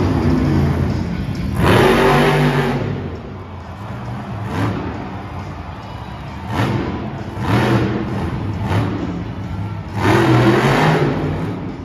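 Monster truck supercharged V8 engines revving in repeated surges, loudest about 2 s in and again about 10 s in, with smaller blips between.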